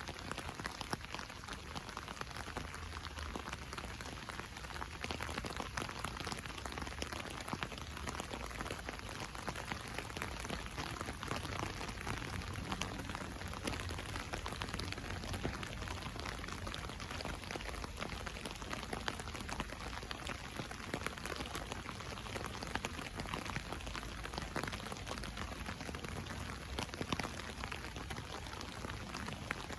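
Steady rain drumming on an umbrella canopy, a dense patter of many drops tapping the fabric, recorded from beneath it on a phone.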